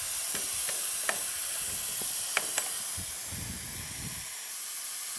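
Air-powered vacuum brake bleeder hissing steadily as it draws brake fluid out through the front caliper's bleeder valve, with a few light clicks.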